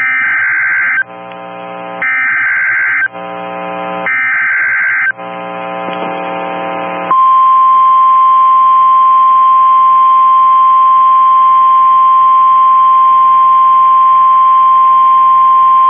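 Emergency Alert System SAME header: three one-second bursts of screeching digital data with one-second gaps of buzzing hum between them. These are followed by the single steady 1050 Hz NOAA Weather Radio warning alarm tone, which holds for about nine seconds and announces a tornado warning.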